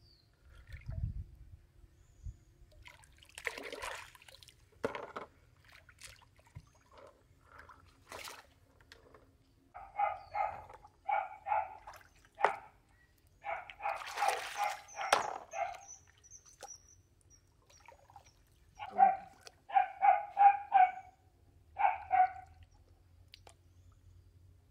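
A dog barking in short, high yaps that come in two clusters of two to four. Water splashes a few times.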